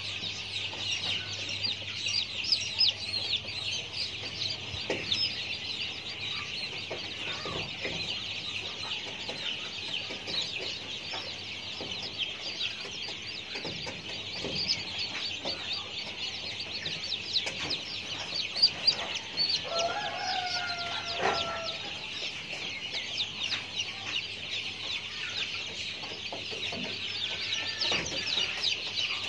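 Dense, continuous high-pitched chirping from many small animals, with one longer pitched call a little past the middle and a faint steady low hum underneath.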